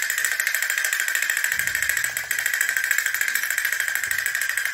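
Small battery-operated toy's motor running, a steady rapid buzzing rattle.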